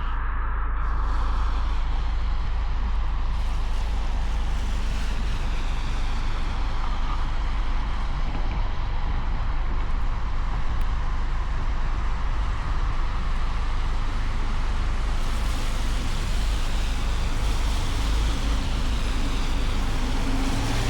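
A car driving on a snowy road: a steady low rumble of road and wind noise with hiss over it. The hiss swells a few seconds in and again for the last several seconds.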